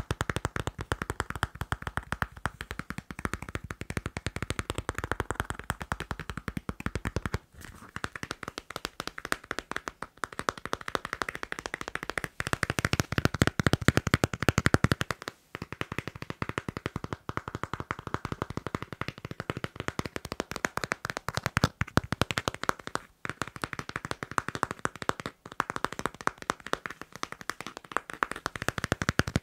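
Fast, continuous tapping on a passport, a dense run of small clicks broken by a few brief pauses.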